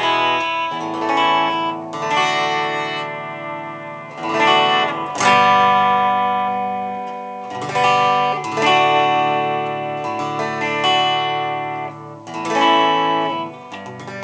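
Squier Telecaster Affinity electric guitar played plugged in: chords strummed and left to ring out, a new chord every second or two.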